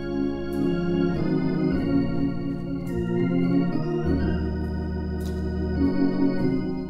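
Organ playing a slow hymn: sustained chords over held bass notes that change every second or two.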